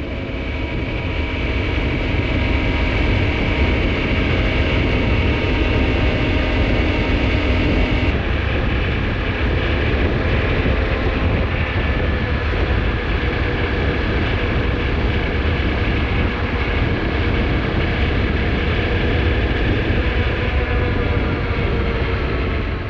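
Honda CRF250Rally's single-cylinder engine running steadily at speed with heavy wind rush, heard from on the moving motorcycle; the engine note shifts slightly about eight seconds in.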